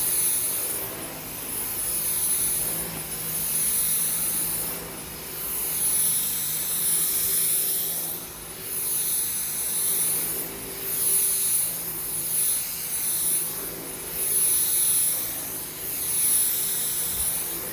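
Dyson V10 cordless stick vacuum running steadily: a high motor whine with a steady hum under it, and a rush of air that swells and fades every second or two as the cleaner head is pushed back and forth over the floor.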